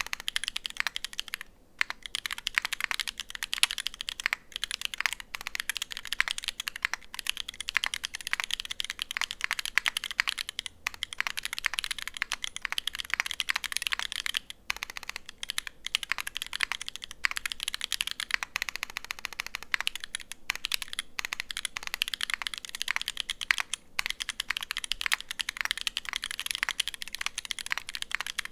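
Fast typing on a Unikorn 60 mechanical keyboard with lubed Holy Panda tactile switches on 67.5 g springs, a brass plate and GMK Olivia keycaps. A dense, continuous run of keystrokes, broken by brief pauses about a second and a half in, near the middle, and again later.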